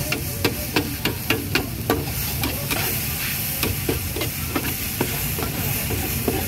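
Cooking utensils knocking rhythmically, about three strikes a second and loudest in the first two seconds, over a steady hiss of cooking.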